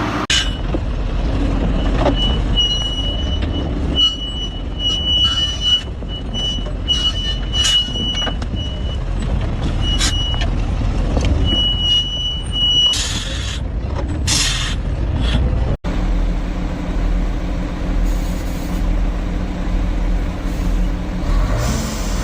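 Logging truck's diesel engine running under load, with a high squeal coming and going for several seconds and a few short bursts of hissing. Near the end the sound changes to a steadier, even engine note.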